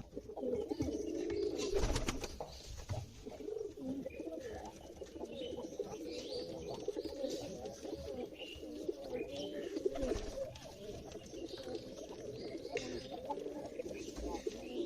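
Domestic pigeons cooing steadily with a low wavering purr, overlapping one another, with thin higher chirps mixed in. There are a couple of sharp knocks, about two seconds in and again about ten seconds in.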